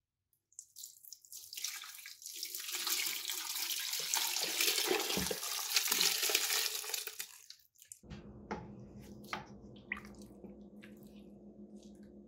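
Onion-and-tomato braising liquid poured over seared beef short ribs in a pot, a continuous splashing pour that builds and lasts about seven seconds. It is followed by a few light knocks of a wooden spoon against the pot over a low steady hum.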